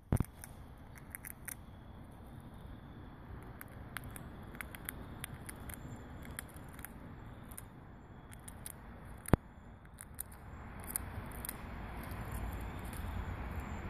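Chipmunk gnawing and cracking peanut shells: a scattered run of small crisp crunches and clicks, with a sharp click about nine seconds in. A bump opens it, and a low background noise grows louder near the end.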